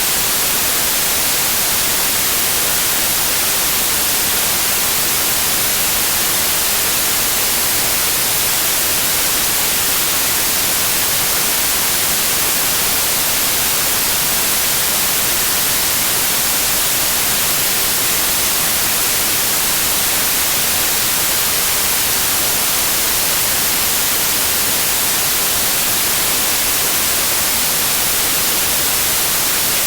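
Synthetic white noise: a steady, unbroken hiss, strongest in the treble, with no change in level.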